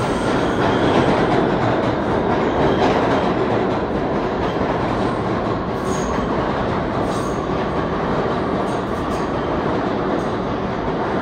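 New York City subway train running past on steel rails, a steady loud rumble of wheels and cars with a thin wheel squeal at the start and again faintly later.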